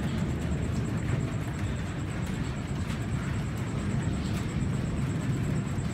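Thunder rumbling on steadily during a lightning storm: a continuous low rumble without a sharp clap.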